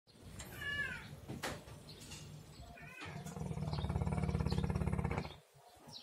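A sleeping black dog snoring: a low rumbling snore at first, then from about three seconds in a long, loud, rattling snore that stops suddenly near the end.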